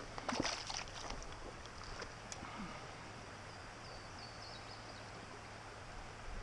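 Small creek running steadily over a gravel and rock bed, with a few short splashes in the first second.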